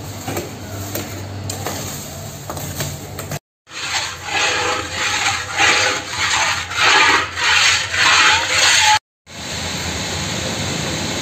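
Long iron spatula scraping and stirring a bubbling halwa mixture in a large iron kadai, in about seven rough strokes, each a little under a second apart. A steady hiss of the hot pan runs before and after the stirring.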